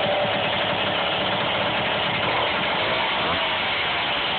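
Indian dirt bike's small single-cylinder engine idling steadily, running on its freshly rebuilt carburetor.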